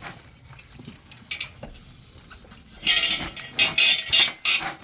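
Metal clinking and clattering: a handful of sharp, loud rattles about three seconds in. These come from bike parts and tools being handled while the e-bike's wheel assembly is worked back into place.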